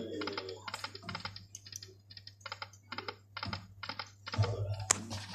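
Poker machine giving out a quick, even run of electronic ticks, about three or four a second, the kind of count-up tick that sounds while a win is added to the credit meter. Over a steady low hum, with a single sharp click near the end.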